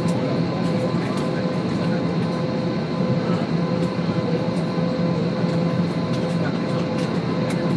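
Steady cabin noise inside an Airbus A320: an even rumble with a hum of a few held tones, from the engines and air conditioning.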